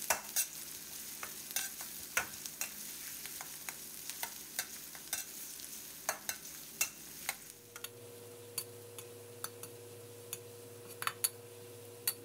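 Sliced shallots frying in hot oil in a metal wok with a steady sizzle. A metal ladle stirs them, clicking and scraping against the wok again and again. The shallots are being fried until golden and crisp.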